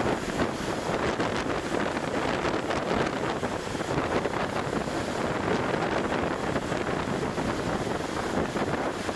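Strong wind blowing hard across the microphone in a storm at sea, with the rush of rough, breaking waves beneath it, steady throughout.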